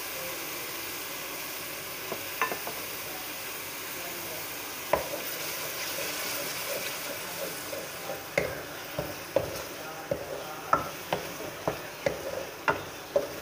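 Onion, spice and blended-tomato masala sizzling steadily in hot oil in a steel wok. A wooden spatula stirs it, knocking and scraping against the pan: a couple of knocks at first, then about two a second in the second half.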